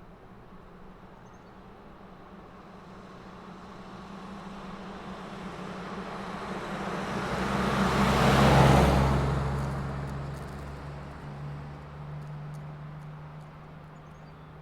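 SUV driving past. It approaches with rising engine and tyre noise, is loudest about two-thirds of the way through, then recedes, its engine note dropping in pitch as it passes.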